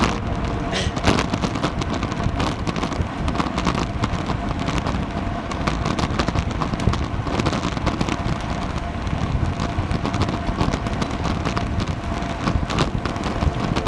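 Wind rushing over the microphone of a camera riding along with a road bike at about 37 km/h, with road rumble and a constant crackle of small knocks and clicks.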